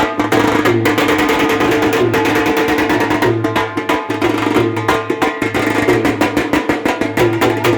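Lively music with a fast, even percussion beat over a pulsing bass and a short melodic figure that repeats.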